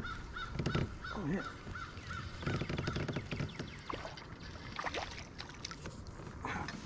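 A bird calls a quick run of about nine short, evenly spaced notes, roughly three a second, through the first three seconds. Clicks and knocks from the angler handling the rod and reel in the kayak sound around it.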